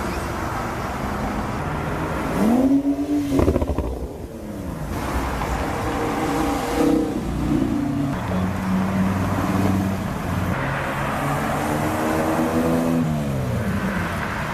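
A car engine revving. Its pitch climbs and drops sharply about three seconds in, holds a steadier note for a few seconds, then climbs and falls again near the end.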